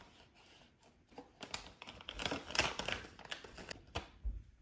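Crinkling and rustling of a cat-treat packet being handled, a run of quick crackles starting about a second in and stopping near the end.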